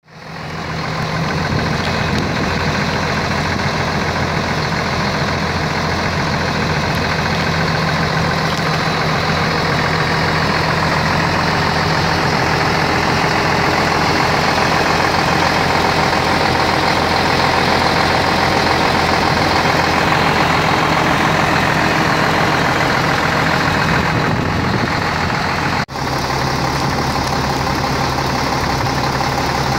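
Renault Magnum truck's MIDR 06.24.65 A46 straight-six diesel, with 1,250,000 km on it, idling steadily. It fades in at the start and has one abrupt break about 26 seconds in, after which the idle resumes with a slightly different low note.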